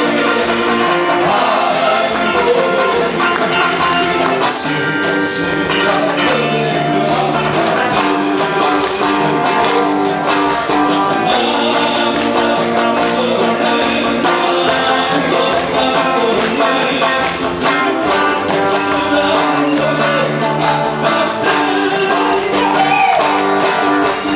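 Live band playing a song, guitar prominent, with singing.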